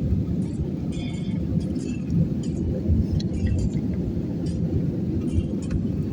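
Steady airliner cabin noise: the engines and airflow give a low, even rumble heard from inside the passenger cabin. A few faint, brief rustles and clicks sit on top.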